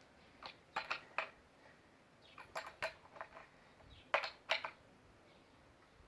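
Sharp metallic clicks and clinks of a wrench on a Stihl chainsaw's bar nuts as they are tightened back down, about nine irregular taps, loudest a little past the middle.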